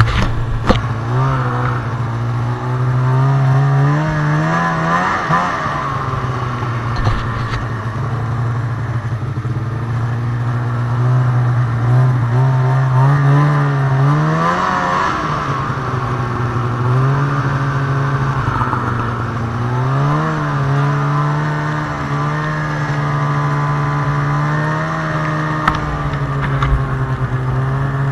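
2002 Arctic Cat ZR 800 snowmobile's two-stroke twin engine running under way, its pitch rising and falling several times as the throttle is worked.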